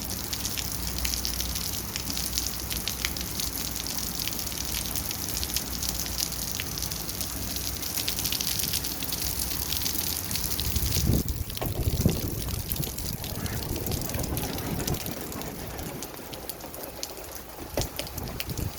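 Rain falling steadily: a continuous hiss with many separate drop clicks. About eleven seconds in, a deeper rushing sound swells for a few seconds, then the rain sound eases a little toward the end.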